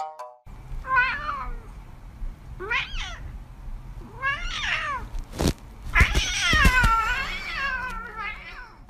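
Domestic cat meowing in a series of about five drawn-out calls that rise and fall in pitch. The longest and loudest starts about six seconds in and lasts about a second and a half. A single sharp knock comes just before it.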